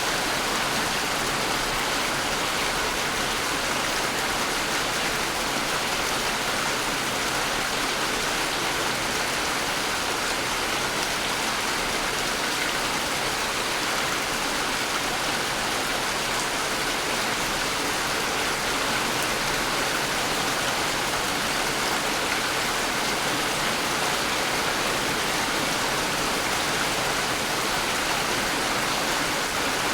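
Steady, even rainfall: a dense hiss of rain with no single drops standing out.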